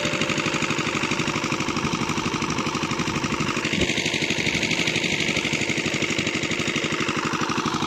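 Engine of a farm irrigation pump set running steadily, with a rapid, even firing beat, while it pumps water from a bore.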